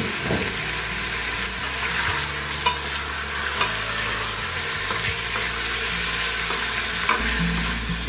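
Pork pieces and vegetables sizzling in a stainless steel stockpot, stirred with a wooden spoon, with a few light clicks of the spoon against the pot.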